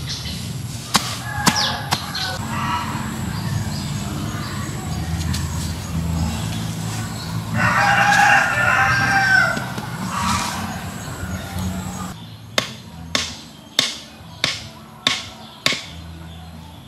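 A rooster crows once, about two seconds long, around the middle. A short hoe chops into dirt: a couple of knocks near the start, then a run of six sharp knocks about half a second apart near the end.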